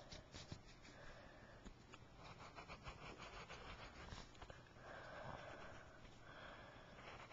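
Faint pencil scratching on paper while drawing: a run of quick short strokes, then a couple of longer strokes lasting about a second each.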